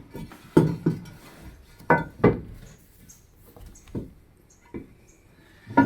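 Scattered sharp clinks and knocks of hard objects being handled, about six in all, with quiet gaps between them.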